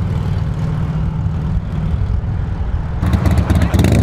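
Low, steady engine rumble that gets louder and rougher about three seconds in.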